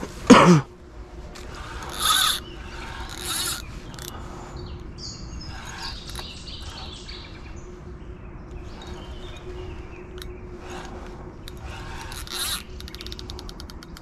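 A carp reel's clicker ratchets as a running fish pulls line off. It goes in irregular jerks, with louder bursts about two, three and twelve seconds in, as if the line were passing through rocks. A brief falling vocal exclamation comes right at the start.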